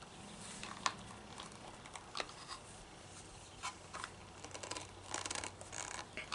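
Scattered light plastic clicks and rattles from the bump-feed head of a Craftsman 25cc string trimmer being pushed down and twisted, its internal notches clicking as it turns, with a quicker run of clicks about four to five and a half seconds in.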